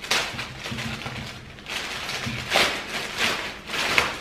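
Clear plastic bag crinkling and rustling in irregular surges as it is pulled open by hand, the sharpest crackle near the end.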